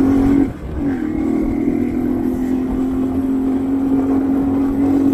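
Motorcycle engine running under steady throttle, heard from the rider's seat with a steady hum. About half a second in the engine note briefly drops and comes back lower, as at a gear change, then pulls steadily again.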